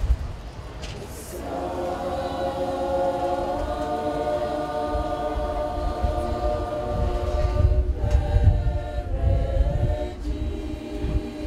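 A choir singing a cappella in several-part harmony, coming in about a second and a half in with long held chords, changing phrase near the middle and pausing briefly near the end before the next phrase.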